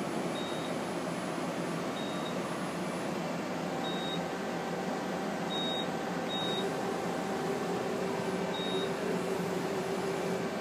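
Okuma LB-15II-W CNC turning center running under power: a steady machine hum and hiss, with short high beeps every one to two seconds. A steady tone joins the hum about seven seconds in.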